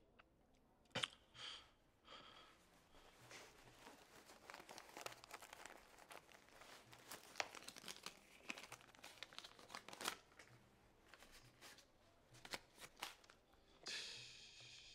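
Near silence with faint rustling and many small scattered clicks, the sound of something being handled close by.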